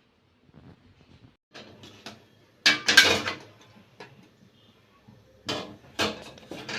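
Metal cookware being handled: a few clanks and clattering knocks, the loudest about three seconds in and a couple more near the end.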